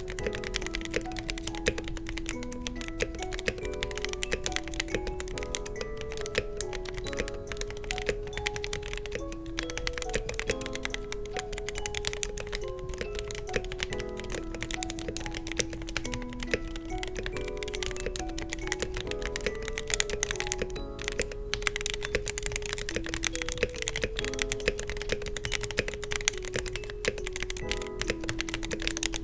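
Continuous fast typing on a mechanical keyboard with Everglide Aqua King V3 linear switches and Akko ASA-profile clear keycaps, a dense run of keystroke clicks, over background music with a simple melody.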